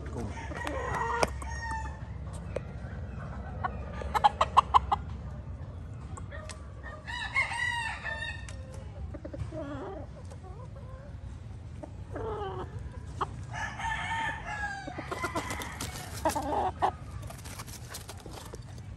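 Gamefowl crowing and clucking, several separate calls spread through the span, including longer pitched crows about seven and fourteen seconds in. The loudest moment is a quick run of sharp pulses about four seconds in.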